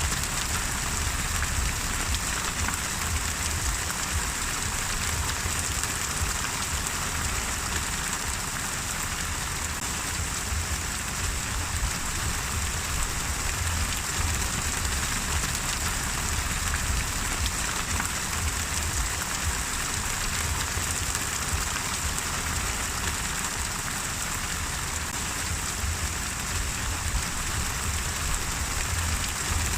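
Steady rain falling on a surface, an even hiss of many drops with a low rumble underneath.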